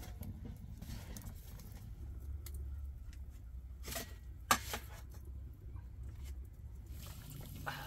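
A metal spatula clicking and knocking a few times against an aluminium serving tray as fried bulani are set down on it, the sharpest knocks about halfway through, over a low steady rumble.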